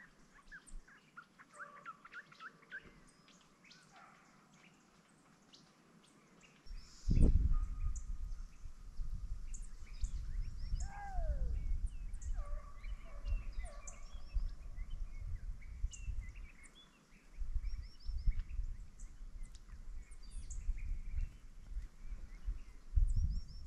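Wild birds chirping and calling, with short rapid chirps and one clear falling whistle. From about seven seconds in, a loud, fluttering low rumble on the microphone covers the birds' sound and lasts to the end.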